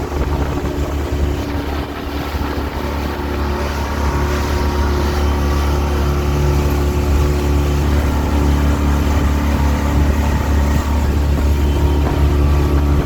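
A motor vehicle's engine running steadily under way, a strong low hum with a steady drone above it, growing slightly louder about four seconds in.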